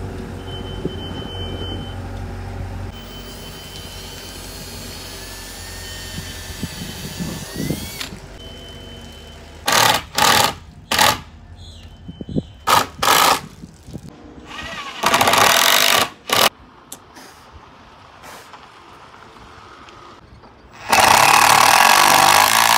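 Milwaukee cordless drill driving screws through a wooden nameboard into a boat's transom: several short bursts of the motor a second or so apart, then a longer run near the end.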